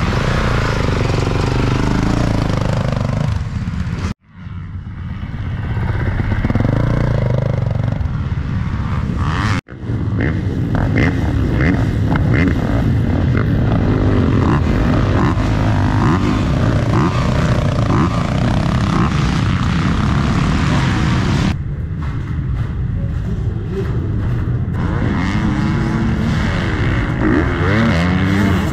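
Motocross dirt bike engines running and revving, their pitch rising and falling. The sound drops out briefly twice, about four and about ten seconds in.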